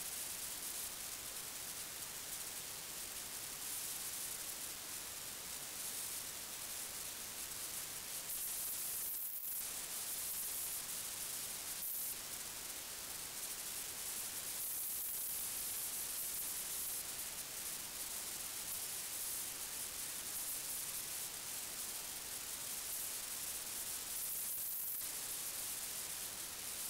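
Steady electronic hiss, strongest in the highest pitches, with no distinct sounds in it: the noise of the Sightmark HD 4-32x digital night-vision scope's own recording.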